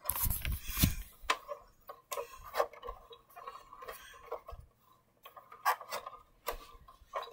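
Irregular hard plastic clicks and knocks from a large plastic toy car being handled as a plush toy is pushed into its seat, with a few dull bumps in the first second.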